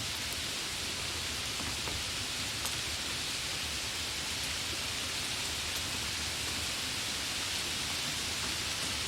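Light rain falling steadily, an even hiss with a few faint individual drop ticks.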